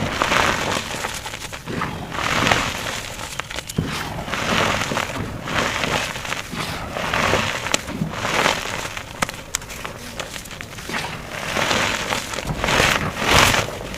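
Blocks of blue reformed gym chalk crunching and crumbling as they are crushed, in a string of gritty bursts about one every second or so, with sharp cracks among them.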